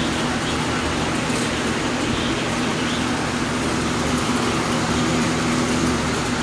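Steady, loud rushing noise with a low hum underneath, unbroken throughout.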